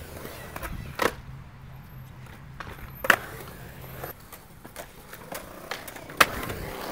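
Skateboards on a concrete bowl: a low rolling rumble of wheels that stops about four seconds in, with sharp clacks of the boards striking the coping and concrete, loudest about one, three and six seconds in.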